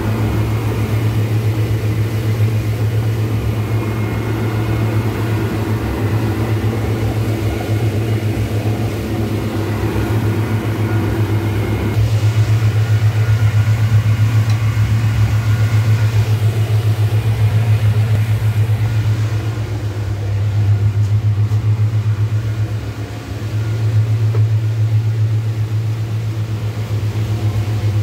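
Twin petrol outboard motors pushing a small yacht at cruising speed: a loud, steady low drone with a short dip in level about two-thirds through.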